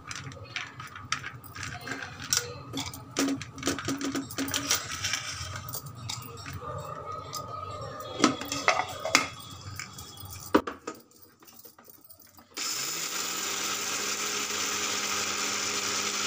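Cashews clattering and clicking as they are tipped and handled in a steel mixer-grinder jar. About three-quarters through, the grinder's motor starts suddenly, spins up quickly and runs steadily, grinding the cashews.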